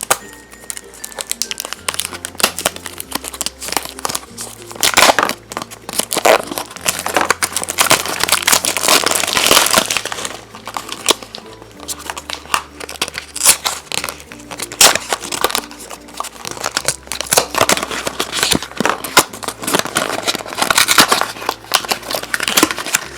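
Plastic wrapping of a small toy package crinkling loudly in irregular bursts as it is handled and worked open, over light background music.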